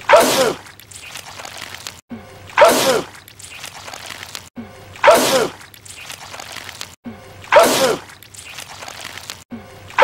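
A man sneezing wetly, the identical sneeze repeated at an even beat about every two and a half seconds, four times. Each is a short intake followed by a loud sneeze.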